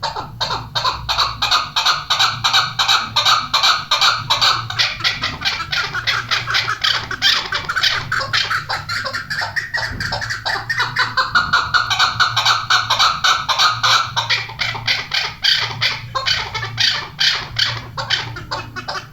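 Chukar partridges calling: a continuous, rapid series of clucking chuk notes, several a second, with a low hum underneath.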